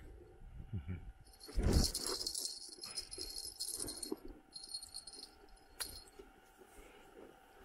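Light metallic jingling lasting about four seconds, with a dull thump near the start and a sharp click a little after it fades.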